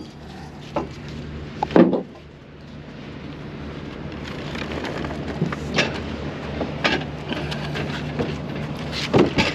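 A few knocks and thumps from the plastic hull of a Hobie Outback kayak being handled and inspected, the loudest about two seconds in. A steady low hum runs underneath, and the background noise swells gradually.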